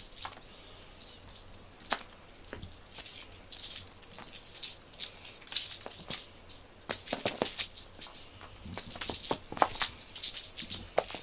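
A cat pawing and nosing through a pile of small cat toys on a foam floor mat: irregular rattling, rustling and light clicks, busier in the second half.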